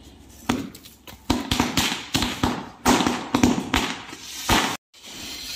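Firecrackers going off on the ground one after another: a rapid, irregular run of sharp bangs and pops for about four seconds, ending abruptly.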